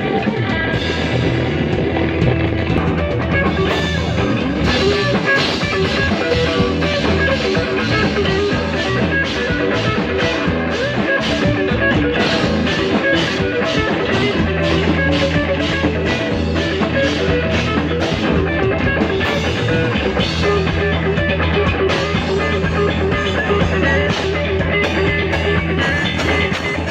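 Rock band playing: electric guitar over a sustained bass line, with drum-kit hits keeping a steady beat.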